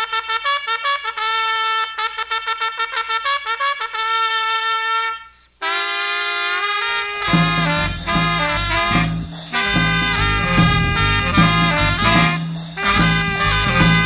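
Band music: a solo horn plays a quick run of short notes and a held note. About five and a half seconds in, the full band comes in with horns, bass and drums in a brassy, swinging groove.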